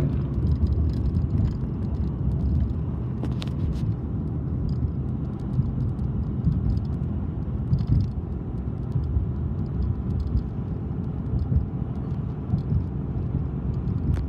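Steady low rumble of a moving vehicle heard from inside as it travels along.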